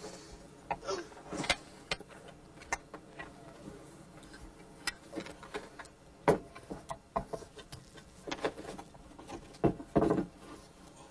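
Irregular knocks, clunks and clicks of a windlass and its wooden mounting pad being handled and fitted over mounting studs by hand. The loudest knocks come about six seconds in and near the end.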